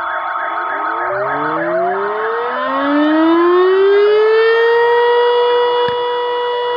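Fire engine sirens: a fast warbling siren sounds at first, then from about a second in sirens wind up in pitch and settle into a steady wail near the end.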